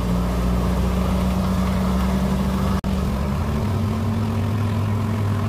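Passenger boat's engine running steadily, a low drone heard from inside the cabin. The sound drops out for an instant about three seconds in, and the engine's note shifts slightly soon after.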